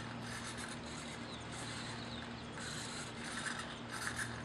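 Small RC hobby servos of a pan-tilt camera mount whirring in short spurts, each under half a second and about one a second, as they swing the pilot head left, right, up and down, over a steady low hum.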